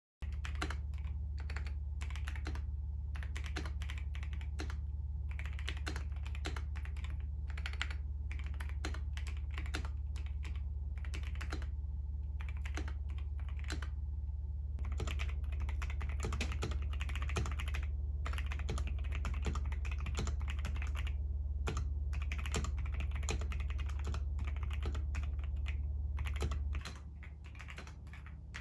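Typing on a Keychron V5 Max mechanical keyboard: a steady, irregular stream of keystroke clicks that gets busier about halfway through. A low steady hum runs underneath and drops near the end.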